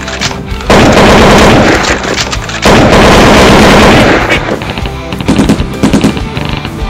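Gunfire sound effect: two long bursts of rapid automatic fire, each about a second and a half, then several separate shots, over background music.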